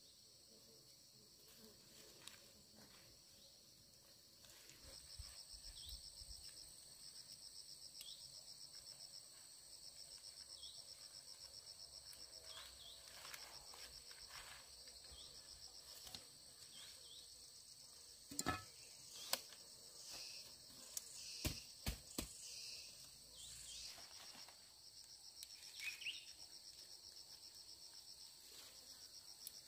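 Faint insects trilling outdoors, a high, rapidly pulsing buzz that starts a few seconds in and carries on steadily. A handful of sharp clicks or knocks stand out in the second half.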